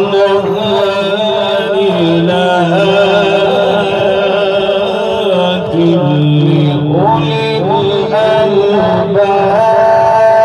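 A male qari reciting the Quran in the melodic tajweed style, one long drawn-out vocal line with held notes and ornamented turns. The melody drops lower about six seconds in, then climbs back up to held higher notes.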